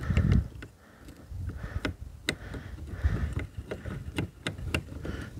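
Scattered sharp metallic clicks and taps of nylock nuts being tightened with a hand tool onto the bolts that hold a kayak's front outrigger bar to its track, over uneven low rumbling, loudest at the very start.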